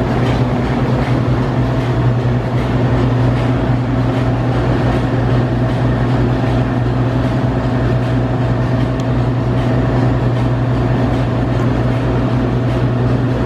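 Amtrak P42DC diesel locomotive's V16 engine running with a steady low drone as the locomotive eases up to the train to couple on.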